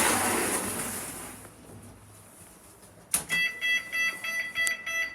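A lift's electronic beeper: a sharp click about three seconds in, followed by a rapid run of high-pitched beeps, about four a second, lasting around two seconds. A hiss fades out in the opening second or so.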